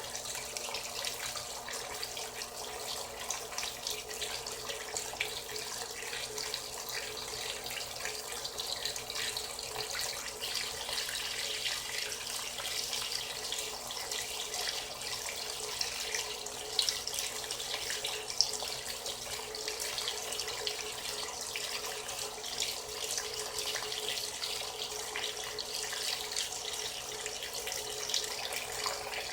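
Water pouring steadily into the tub of a Frigidaire Gallery Series top-loading washing machine as it fills.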